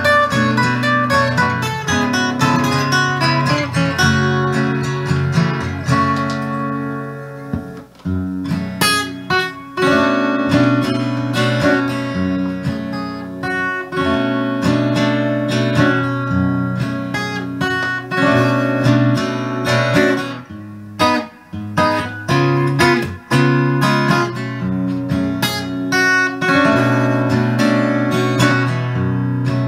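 Acoustic guitar strummed in an instrumental passage of a song, without singing, with a couple of brief breaks in the strumming.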